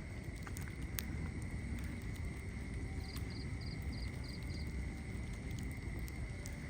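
Wood fire burning in a fireplace: a steady low rumble with occasional sharp crackles and pops. A quick run of six faint high chirps comes about three seconds in.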